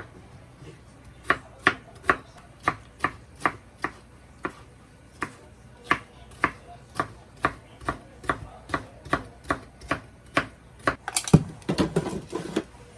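Kitchen knife chopping on a cutting board in steady strokes, about two a second, ending with a louder knock and a short clatter.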